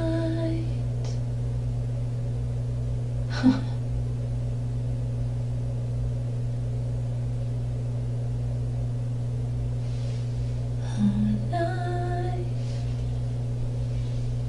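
A woman singing or humming a few long held notes near the start and again about eleven seconds in, over a steady low hum. A single short knock about three and a half seconds in.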